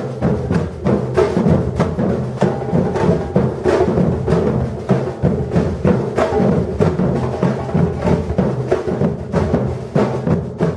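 Batucada drum ensemble playing together in a fast, steady rhythm, deep bass drums under many quick, sharp strikes.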